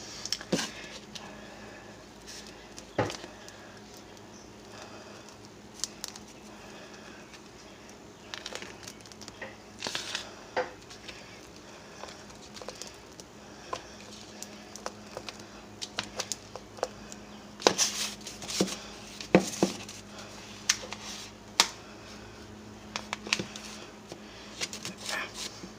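Hands working a sticky, hardening mass of microwave-melted gummy candy: scattered small clicks, taps and crackles, growing busier in the second half, over a faint steady low hum.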